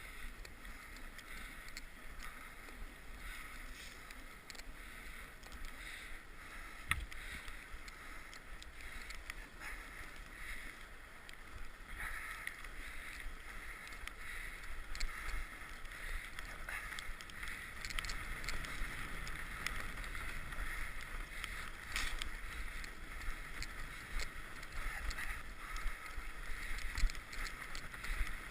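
Mountain bike riding along a trail: steady rolling and tyre noise with scattered small clicks and knocks from the bike, getting a little louder in the second half.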